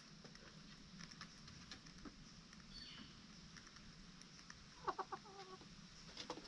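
Chicken clucking: a short run of clucks about five seconds in, over faint scattered clicks.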